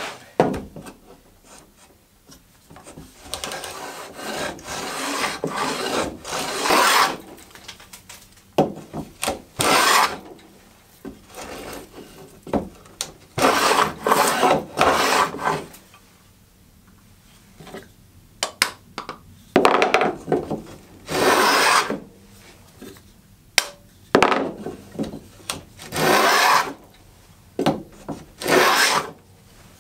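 Wooden fillister (rabbet) plane cutting a rebate along the edge of a board: repeated hissing strokes, each one to two seconds long, with pauses and short knocks between them. The freshly sharpened iron is taking long continuous curled shavings.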